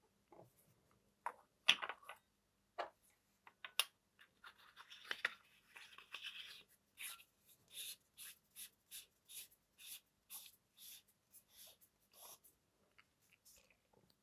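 Faint handling of a Convoy S21B flashlight: a few light clicks and taps, then a run of short scraping strokes, two or three a second, as a cap is turned on its smooth threads.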